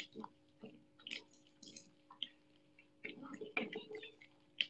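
Young otter chewing on a raw catfish: irregular wet crunches and clicks as it bites through the fish, coming thick and fast about three seconds in, with one sharp crunch near the end.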